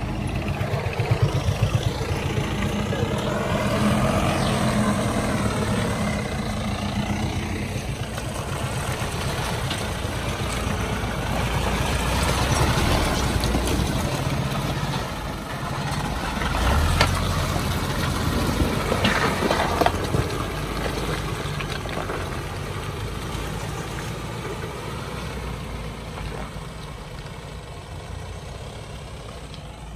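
Tata 407 4x4 light truck's diesel engine running as the loaded truck creeps past close by on a muddy road, its note rising and falling a few times early on. It is loudest in the middle and fades as the truck moves away near the end.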